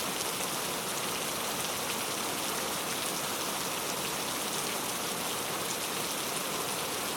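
Heavy rain falling steadily on a camping tent, an even hiss with scattered drop ticks.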